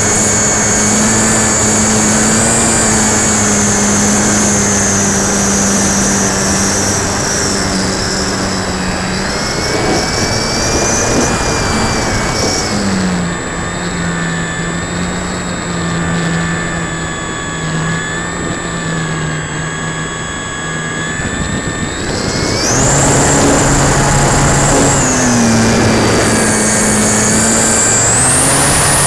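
Durafly Tundra RC plane's electric motor and propeller whining steadily in flight, heard from a camera on the fuselage with air rushing past. About thirteen seconds in the whine drops lower and quieter as the throttle is eased back, then rises again about nine seconds later.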